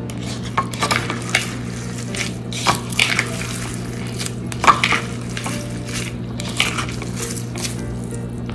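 Grated onion being squeezed by hand in a plastic colander, irregular wet squishing as the onion juice is pressed out through the holes, over a steady low hum.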